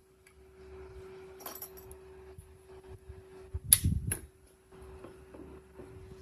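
Small metal parts being handled in a workshop: a brief jingle, then a sharp metallic click with a thud just under four seconds in and a second click right after, over a faint steady hum.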